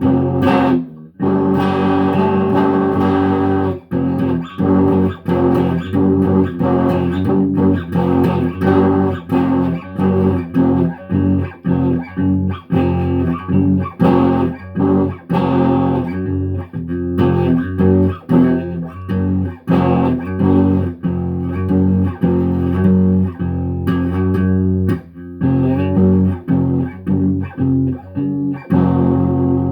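Guitar playing a run of short, choppy notes and chords with many brief stops, ending on a held ringing chord near the end.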